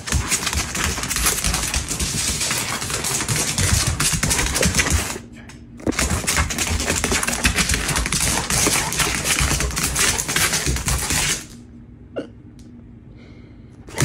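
A large dog's claws clattering and scrabbling on a hardwood floor as it runs about, in two long runs of rapid clicking with a short break about five seconds in; it stops about eleven seconds in.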